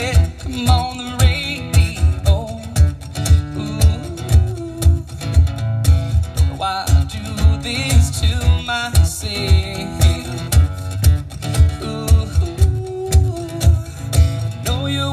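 Live acoustic duo: a strummed acoustic guitar and a man singing, over a cajon keeping a steady low beat.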